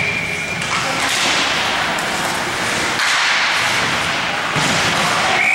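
Ice hockey play: skates scraping and carving on the ice and sticks clacking, with a few sharp hits, over the steady hiss of the arena. A steady high tone sounds through the first second.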